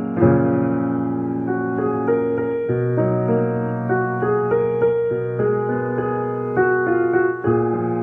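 Background piano music: a slow melody of sustained notes with chords changing every second or so.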